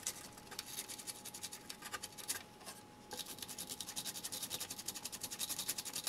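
A brush scrubbing flux residue off a freshly resoldered printed circuit board in rapid back-and-forth strokes, several a second, with a short pause about two and a half seconds in.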